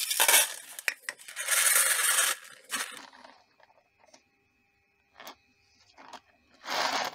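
Small steel nuts, bolts and washers rubbed, scraped and rattled about in a shallow plastic tray of liquid. It is loud and continuous for the first three seconds, then comes as a few short, quieter rattles.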